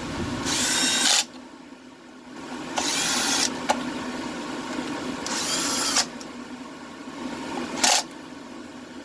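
Stihl chainsaw's recoil starter pulled three times, each pull a short whirr as the engine spins over freely with the spark plug out, followed by a shorter pull near the end.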